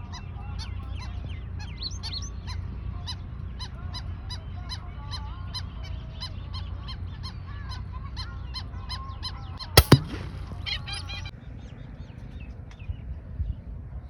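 A flock of small birds calling busily in quick repeated chirps, then a single sharp crack about ten seconds in, the shot of a PCP air rifle. The calling stops about a second after the shot.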